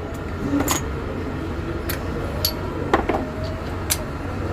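Hand tools clinking against metal while work starts on removing the bearing caps of a bus differential: a handful of sharp metallic clinks a second or so apart, over a steady low hum.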